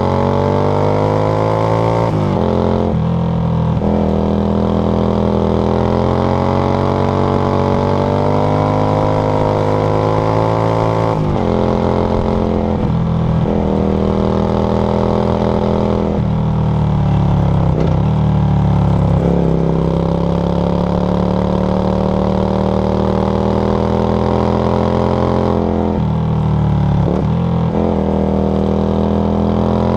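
Yamaha XV535 Virago's V-twin engine with a SilverTail K02 aftermarket exhaust, under way: the revs climb steadily for several seconds at a time, broken by short dips at gear changes or when the throttle eases off, about half a dozen times.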